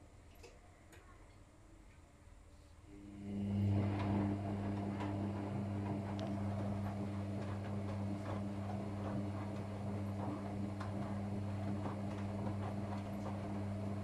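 Whirlpool FL 5065 front-loading washing machine in the wash phase of a 40°C programme: the drum sits still for about three seconds, then its motor starts again with a steady hum, turning the laundry through sudsy water with sloshing and light ticks and knocks.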